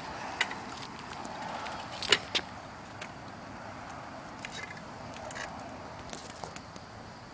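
Quiet outdoor street ambience with a few scattered sharp knocks and clicks, the loudest two close together about two seconds in.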